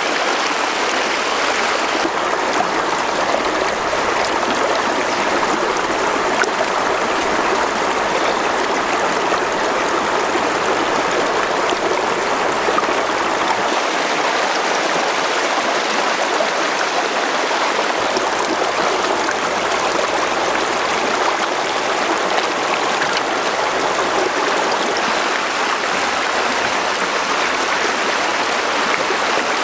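Stream water flowing steadily, a constant rushing of running water.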